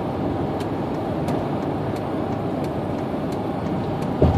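Steady road and engine rumble inside a moving truck's cab, with faint light ticks about every two-thirds of a second and a short low thump near the end.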